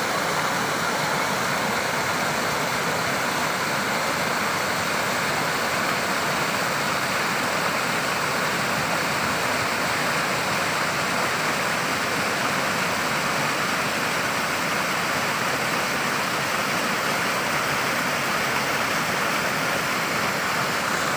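Water rushing out of a concrete culvert into a canal, churning and foaming at the outfall: a steady, even roar of falling water.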